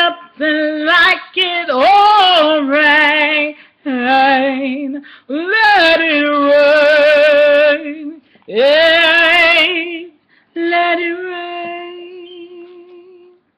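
A woman singing unaccompanied: long held notes with a wide vibrato, in phrases broken by short pauses for breath, the last note held steady and slowly fading away near the end.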